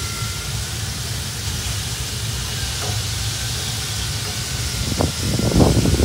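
Steady hiss over a low rumble from an open pellet grill loaded with smoking meat. Near the end come a few short, soft dabbing sounds as a sauce mop is brushed onto the meat.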